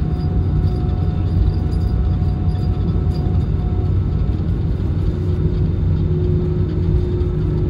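Airbus A320's CFM56 jet engines running, heard inside the cabin from a seat over the wing as a steady low rumble. A faint engine tone grows stronger about six seconds in.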